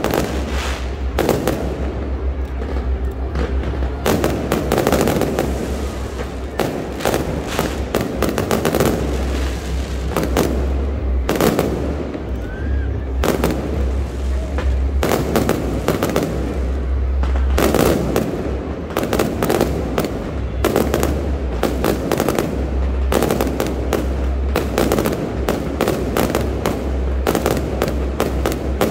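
Aerial fireworks bursting in rapid, continuous succession: many sharp bangs over a deep, rolling rumble.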